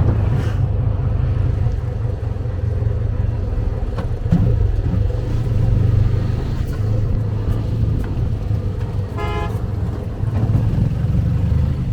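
Motor vehicle engine running steadily, with a short horn toot about nine seconds in.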